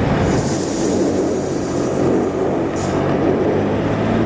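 A car driving at speed: the engine runs steadily under a dense, loud rumble, with a hiss up high.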